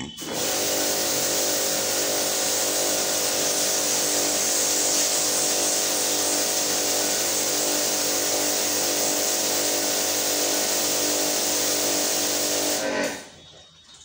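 Small electric pump of an AC-servicing wash kit switching on abruptly, running at a steady pitch with a hum and strong hiss, then cutting off near the end.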